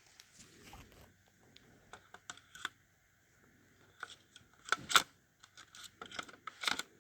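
Scattered plastic clicks and knocks from handling a battery-powered smoke alarm as its battery is taken out and refitted, the loudest cluster about five seconds in.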